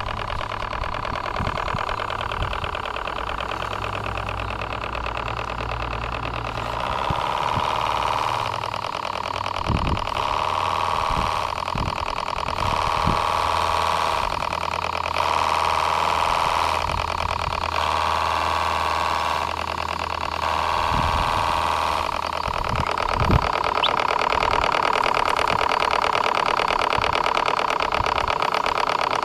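Model Q series V-twin steam engine running under steam, a fast, even chatter of exhaust beats with steam hiss. For a while its sound swells and falls about every second and a half, then settles to a steady run near the end.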